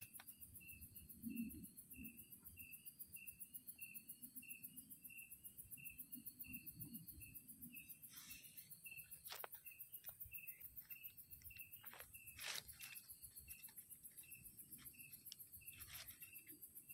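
Night insects: a cricket chirping evenly about three times a second over a continuous high-pitched insect buzz, with a few soft clicks and rustles in the middle.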